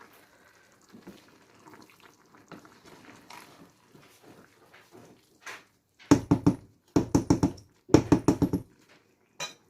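A spoon stirring half-cooked biryani rice in a pot: soft scraping at first, then three bursts of rapid knocking and scraping against the pot a little past halfway, and one short click near the end.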